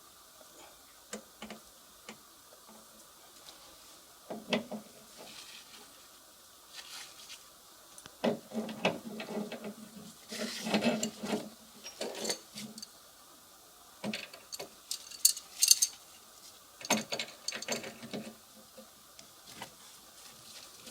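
Hand tools and metal parts being worked while an air conditioner is taken apart: scattered clicks, then irregular bursts of rattling and scraping, in two busy stretches.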